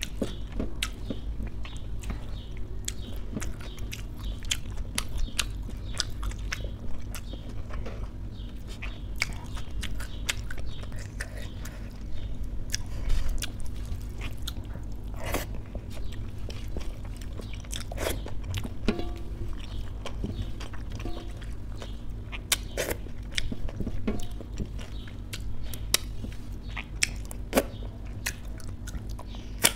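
Close-miked eating sounds: wet chewing of soft dal and rice, lip smacks and finger licking, with many small sharp mouth clicks, and fingers wiping a steel plate.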